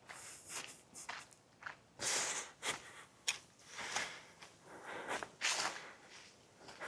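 Footsteps of a person walking on a dry trail: a run of crunchy, scuffing steps at about one to two a second.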